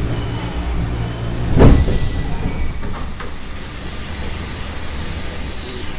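Moscow metro train rumbling as it stands at a station, then its sliding doors bang open with one loud thump about a second and a half in. A couple of faint clicks follow, and near the end a high whine falls in pitch.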